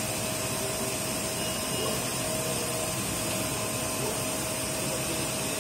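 iMaxcan UV flatbed printer running while its print-head carriage travels across the bed: a steady whirring hiss with a constant thin whine.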